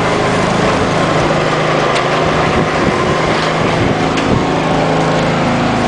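A motor engine running steadily under a loud, even hiss of noise, with a couple of faint ticks.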